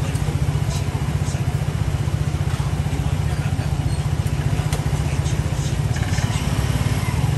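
A steady low mechanical rumble, like a small engine running, with faint scrapes and clicks now and then from a hand peeler stripping the rind off a stalk of sugar cane.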